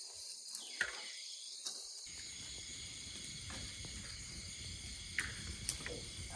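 Steady high-pitched chirring of insects in the background, with a few faint ticks.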